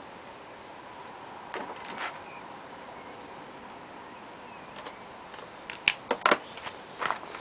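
Quiet background with the engine stopped, broken by a couple of knocks about two seconds in and a quick cluster of sharp clicks and knocks near the end as the RC transmitter is handled and set down on the concrete floor.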